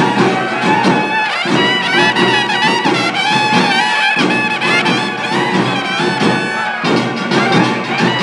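Several trumpets playing a festival tune together, their notes wavering and overlapping, over a steady backing of drums.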